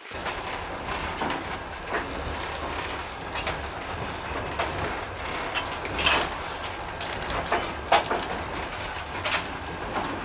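Moving passenger train carriage: a steady low rumble from the running gear, with sharp clacks of the wheels about every second and a half.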